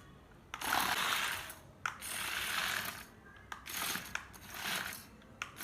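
Gear mechanisms of a toy RC combine harvester model clattering in four short bursts, each starting with a click.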